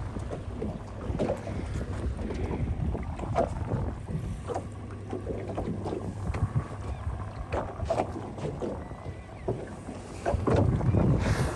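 Wind buffeting the microphone over choppy water slapping irregularly against a small boat's hull, louder about ten and a half seconds in.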